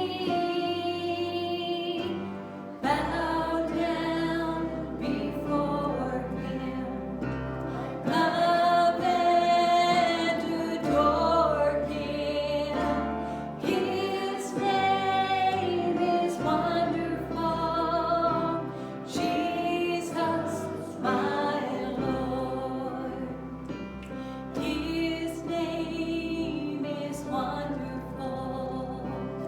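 Worship music in a church service: singing over instrumental accompaniment with long held bass notes.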